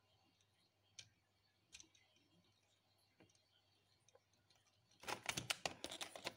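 Lego plastic parts clicking as the brick-built helicopter model is handled: a few single clicks, then about a second and a half of rapid clicking and clattering near the end as the model is brought down onto the desk.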